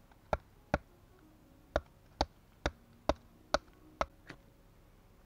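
A knife striking a thin stick of wood in a run of eight sharp knocks, roughly two a second, each with a short ring, with a brief pause after the first two.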